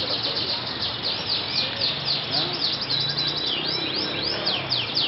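Domestic canaries singing: a rapid high trill, then a run of quick sweeping notes, returning to a fast trill near the end.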